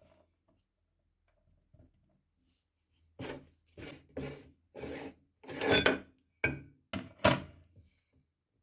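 Meat grinder working chocolate donuts through, a run of about eight separate rough scraping strokes starting about three seconds in, the loudest near the end of the run.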